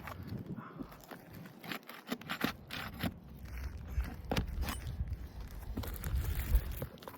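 Shingle-lifting pry tool scraping and clicking against asphalt roof shingles as they are worked loose from their nails, in many short irregular strokes, with a low rumble through the middle stretch.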